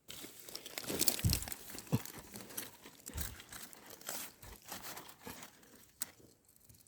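Dry forest leaf litter rustling and crackling as it is pushed aside by hand to get at mushrooms, dense irregular crackles that thin out near the end.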